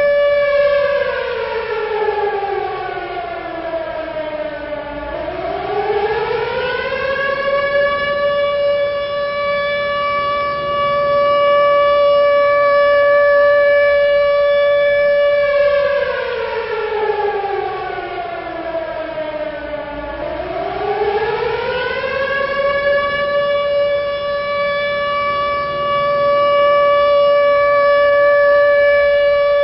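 World War II air raid siren wailing. A steady high tone twice slides down to about half its pitch and climbs back up, holding high between the slides, and starts sliding down again near the end.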